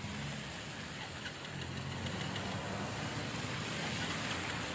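Traffic driving along a flooded street: car and bus engines running, with a steady hiss of tyres and spray through standing water.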